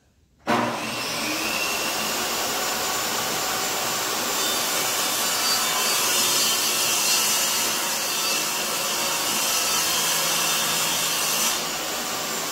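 Benchtop table saw starting abruptly about half a second in and running at speed while the blade rips a strip of SmartCore vinyl plank flooring. The higher cutting noise drops away shortly before the end while the motor keeps running.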